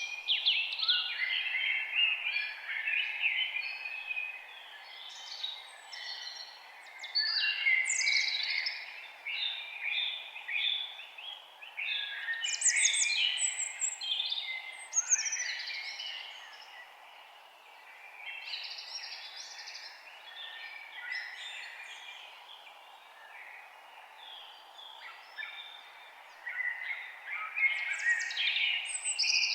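Many songbirds singing and chirping at once in a forest chorus, over a steady faint background hiss. The calls thin out a little past the middle and pick up again near the end.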